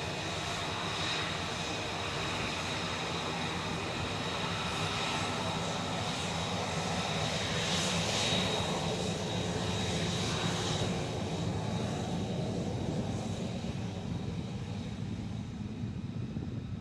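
Jet aircraft engine running with a steady high whine, growing louder about eight seconds in and then fading, its high end dying away toward the end.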